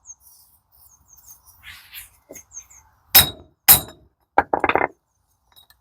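Hammer striking a steel pipe used as a drift to drive a synchronizer onto a gearbox shaft. Two ringing metallic blows about half a second apart, then a quick run of lighter strikes.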